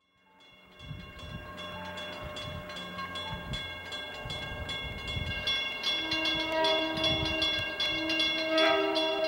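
Grade-crossing bell ringing steadily. About six seconds in, the approaching train's horn starts sounding in separate held blasts, each growing louder.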